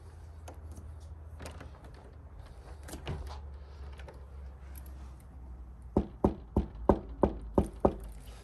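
Knocking on a front door: seven sharp knocks, about three a second, starting about six seconds in. Before them there is a steady low hum with a few faint clicks and a dull thud.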